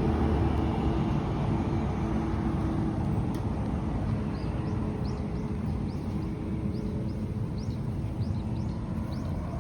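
A steady engine hum with a low rumble, like a motor vehicle running. From about four seconds in, a run of short, high chirps repeats over it.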